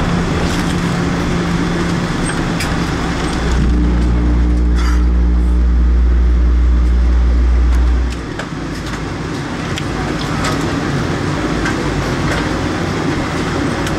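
Cabin noise of a Boeing 777-300 rolling out on the runway after landing: a steady rumble of engines and wheels. A deeper, louder rumble sets in about three and a half seconds in and stops abruptly around eight seconds.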